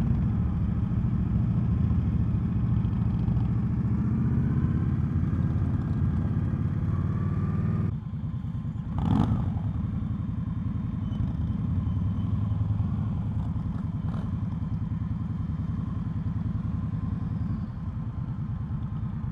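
2020 Indian Scout's V-twin engine running at low speed as the motorcycle rolls. The engine drops abruptly to a quieter level about 8 seconds in, and a brief louder noise comes about a second later.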